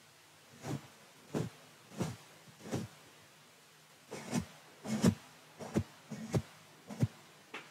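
A soft fluffy brush stroked directly across a microphone's mesh grille: about a dozen short, separate brushing swishes, some coming in quick pairs, with a pause of about a second near the middle.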